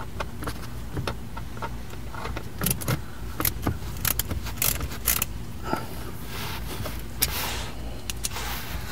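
Right-angle Phillips screwdriver turning out the screws of a car's center-dash speaker housing: irregular small metallic clicks and ticks with some handling rustle, over a steady low hum.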